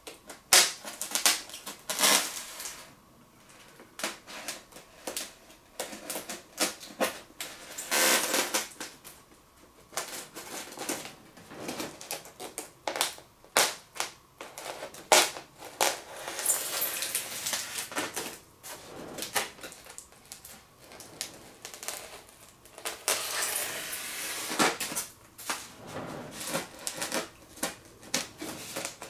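Statue packaging being unpacked by hand: irregular clicks, scrapes and crackles of cheap low-density styrofoam inserts and wrapping being pulled apart and handled, with several longer rustling stretches.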